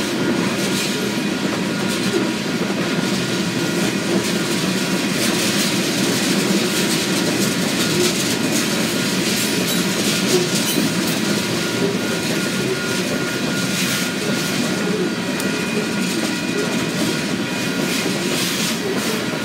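Covered hopper freight cars rolling steadily past, a continuous rumble of steel wheels on rail with irregular clicks and clatter from the wheels and couplers.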